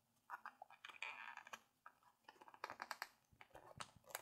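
Faint clicks, taps and rustles of cardboard and paper packaging being handled as a small boxed product is worked out of its tight compartment.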